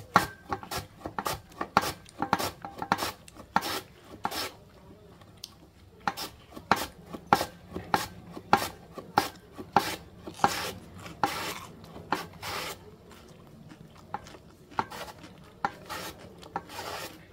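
Raw potato being shredded on a julienne mandoline slicer: a rhythmic series of rasping slicing strokes, about two a second, with two short pauses.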